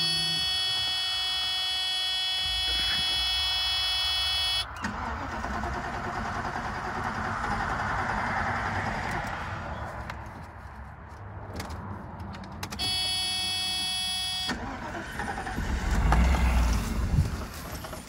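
A Mercedes 420SEL's 4.2-litre V8 being cranked on the starter, as a test to see whether fuel sprays from an injector line. A steady high electronic tone sounds at the start and again briefly later, and there is a low rumble near the end.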